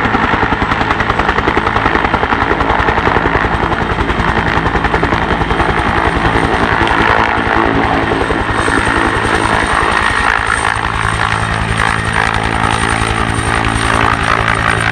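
Bell 212 helicopter lifting off: its two-bladed main rotor beats rapidly and evenly, with its twin turboshaft engines running underneath. A thin high turbine whine comes in about halfway through as it rises into a hover and climbs away.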